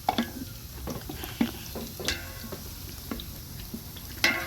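Onions frying in oil in a cooking pot, stirred with a spoon that knocks against the pot again and again, with the loudest knocks at the start and near the end.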